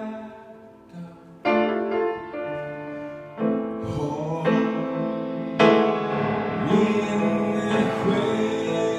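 A grand piano played in chords, with a man singing along. The playing is soft for the first second and a half, then a fresh chord comes in and further chords follow every second or so.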